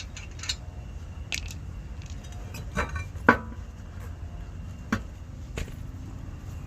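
Hand tools knocking and clinking against metal brake parts in half a dozen separate sharp hits, the loudest about three seconds in, over a steady low rumble.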